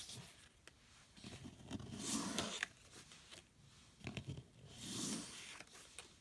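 Oracle cards being slid off a stack and laid down by hand: two soft swishes of card sliding over card and paper, about two seconds in and near the end, with light taps and clicks of card edges in between.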